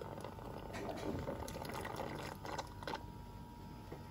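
Stingless-bee (kelulut) honey being sucked out of broken honey pots through a thin plastic tube: a wet gurgling suction noise with many small clicks, which stops about three seconds in.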